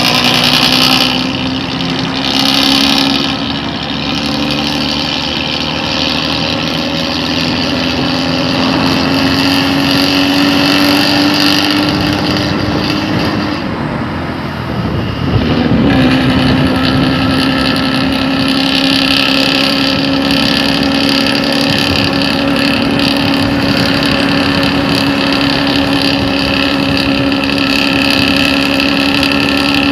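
Hino truck's diesel engine running through a modified exhaust, giving a steady, deep snoring drone. Its pitch creeps slowly up over the first half; about halfway through it turns rough for a moment, then settles into a steady drone again.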